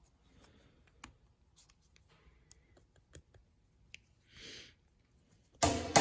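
A few light, scattered clicks and taps of steel parts being handled, a 3/16 rod pivot pin fitted snugly into half-inch plate pieces, with a brief rubbing sound about four and a half seconds in. Percussive background music starts near the end.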